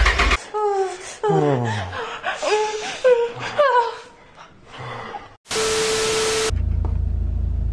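Edited-in sound effects: a voice making short sliding vocal sounds for a few seconds, then about a second of TV static hiss with a steady beep tone. After the static comes a low steady rumble.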